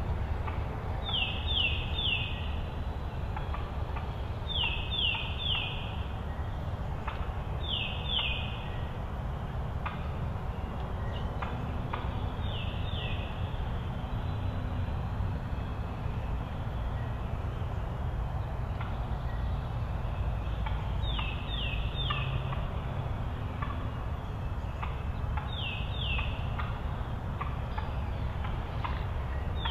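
A small bird singing a short phrase of two or three quick whistled notes, each sliding down in pitch, repeated every few seconds over a steady low rumble.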